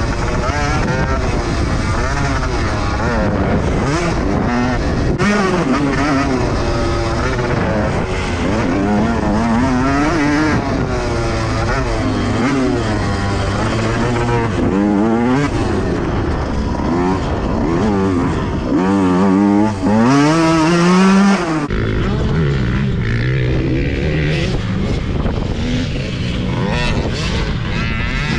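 Dirt bike engine being ridden hard, revving up and dropping back over and over as it shifts and brakes through the track. Wind rushes over the microphone, loudest for a second or so about two-thirds of the way in.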